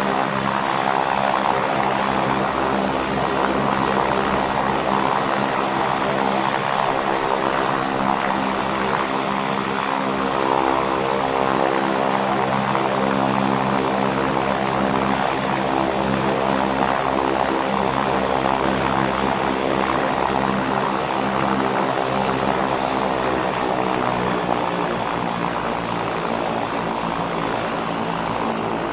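Propeller airplane engine running steadily at a constant pitch, with a thin high whine over it. About 23 seconds in, the engine eases down to a slightly lower pitch and holds there.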